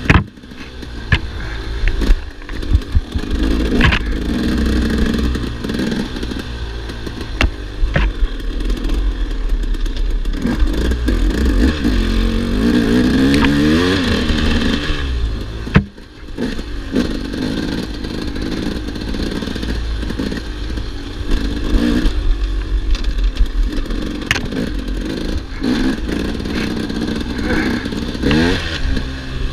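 Single-cylinder two-stroke engine of a 2008 KTM 300 EXC enduro motorcycle revving up and down with the throttle while riding, heard from the handlebars. Scattered sharp knocks and clatter run through it, and the engine sound drops away briefly near the start and again about halfway.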